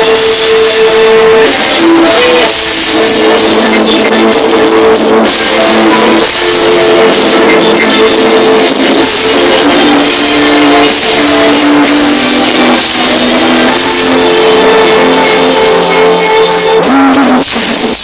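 Live band playing an instrumental break in a pop ballad, with guitar and drums under sustained melody notes, loud.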